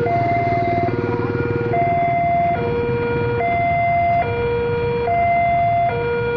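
Electronic railway level-crossing warning alarm sounding a steady two-note alternation, a lower and a higher note each held a little under a second. The engines of waiting and passing motorcycles and cars run underneath.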